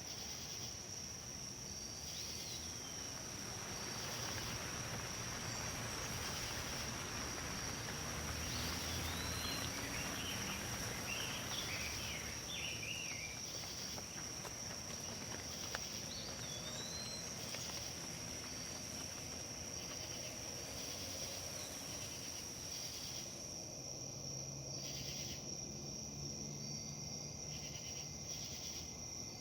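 Wind rustling through leaves, swelling into a gust a few seconds in and easing off again, over a steady high-pitched insect drone. A few short bird chirps come through in the middle.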